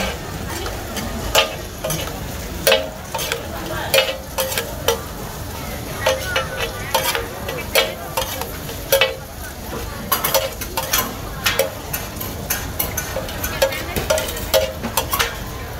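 Two metal spatulas scraping and clanking on a large flat steel griddle as pad thai noodles are stir-fried, with a steady sizzle underneath. The clanks come irregularly, about two a second, some with a short metallic ring.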